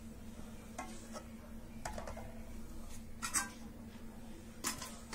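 Quiet room tone: a steady faint hum, with four faint brief rustles spread through it.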